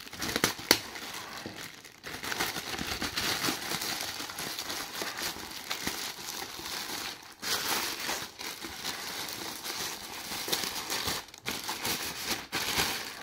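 Grey plastic courier mailer bag crinkling and rustling as it is slit open with a snap-off cutter and a boxed item is pulled out of it, with a few sharp clicks in the first second and brief pauses in the handling.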